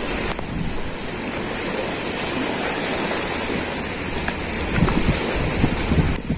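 Small sea waves washing against the shore, a steady rushing of water, with wind buffeting the microphone in gusts from about five seconds in.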